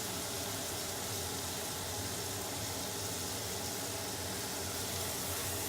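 Mushrooms and shallots frying in butter and pan juices on high heat, a steady sizzle as they are stirred.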